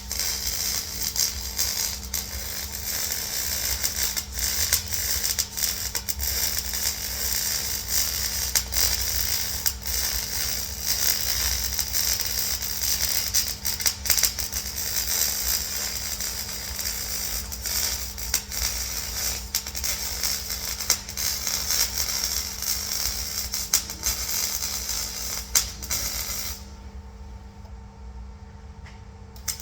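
Welding on a bucket: a steady, loud crackling hiss full of fast small clicks, like a MIG arc laying a bead. It stops near the end and starts again just after.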